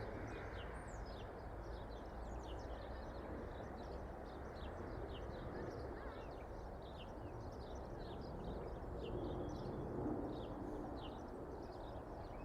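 Small birds chirping, many short quick downward chirps one after another, over a steady low rumble of distant road traffic.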